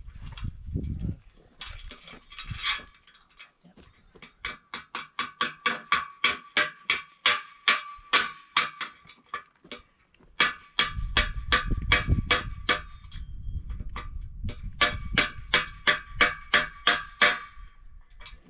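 Metal being struck at the flagpole's base bracket, repeated ringing metallic taps about four a second, in three runs with short pauses.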